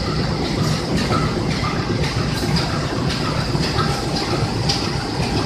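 CC203 diesel-electric locomotive passing slowly at close range, its diesel engine running with a steady low rumble. There are occasional clicks from the wheels on the track.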